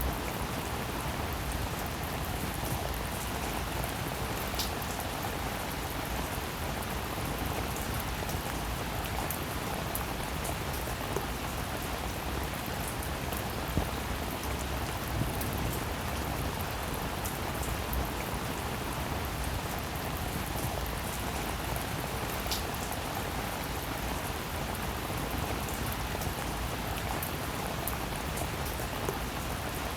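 Steady, even rainfall, with the ticks of single raindrops scattered through it and a few sharper drop hits.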